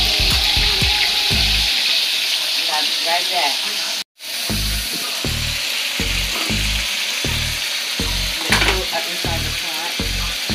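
Bacon sizzling in a frying pan, a steady crackling hiss, with a regular low thumping beat underneath. The sound cuts out for an instant about four seconds in.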